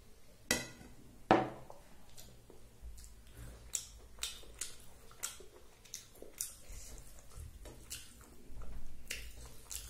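A small bowl knocked twice on the plate and table as it is set down, the second knock the loudest, about a second in; then fingers mixing rice with lentil dal on the plate, soft wet squishes and light clicks against the plate.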